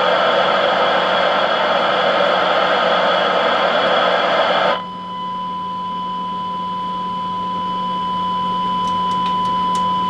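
Icom IC-201 transceiver's FM receiver hissing loudly with no signal. About five seconds in the hiss cuts off suddenly and a steady test tone takes over as the signal generator lands on the receive frequency: the receiver quieting on the modulated test signal, showing the FM receive path works.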